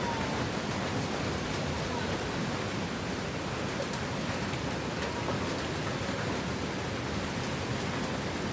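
Steady rushing noise of wind and rain from an approaching hurricane, with a few faint light ticks.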